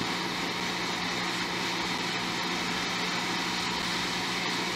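Hot air rework station blowing onto a USB-C charging port during desoldering: a steady hiss with a low hum underneath.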